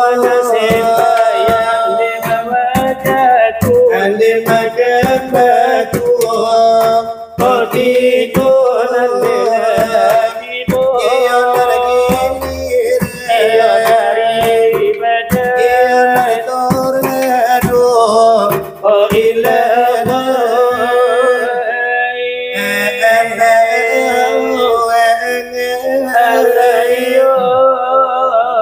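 Salawat dulang: two male voices singing a Minangkabau devotional chant in a wavering, ornamented melody, accompanied by a steady rhythm of finger taps on large brass trays (dulang).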